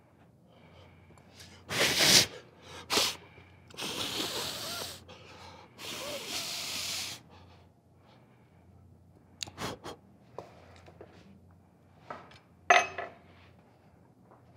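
Kitchen work noises: a few short knocks and clicks, one sharp one near the end, and two hissing sounds of about a second each in the first half.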